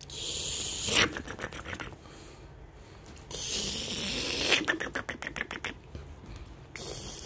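Bedding rustling and scraping as a miniature dachshund scrambles on a comforter, playing with a hand. It comes in three rough spells, each trailing off into a quick run of scratchy strokes.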